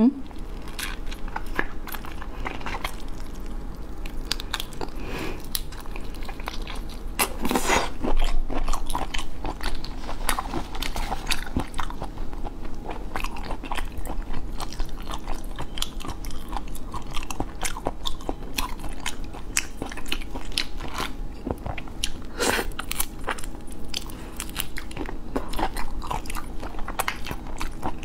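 Close-miked biting and chewing of raw shrimp: wet clicks and crunches of shell and flesh, with louder bites about a third of the way in and again near 22 seconds.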